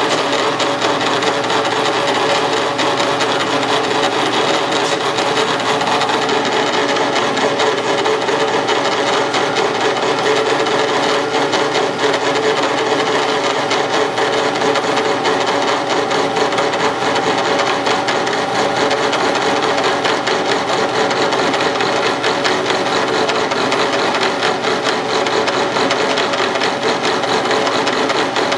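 Milling machine running steadily under CNC control, its spindle driving a right-angle attachment's 60-degree cutter as it thread-mills a 10-24 thread into a 3/16 inch drill-rod blank. A steady machine noise with a constant hum.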